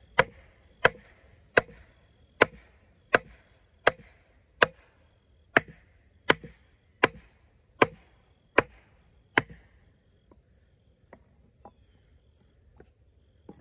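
Batoning: a baton strikes the spine of an Extrema Ratio Tuscan fixed-blade knife (Böhler N690 steel) to drive it across a stick, about thirteen sharp knocks at an even pace of a little more than one a second, stopping about nine seconds in. Crickets chirr steadily underneath.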